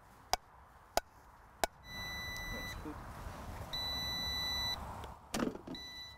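Air fryer's electronic beeper: two long beeps of about a second each, then a short one near the end, over a steady hiss. Three sharp clicks come before them, about two-thirds of a second apart.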